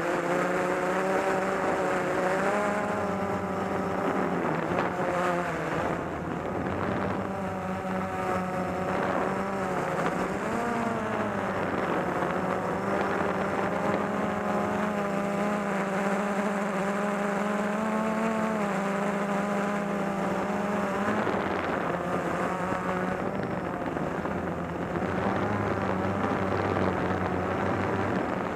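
Electric motors and propellers of a small radio-controlled camera drone whining steadily in flight, the pitch wavering and shifting a little as it manoeuvres.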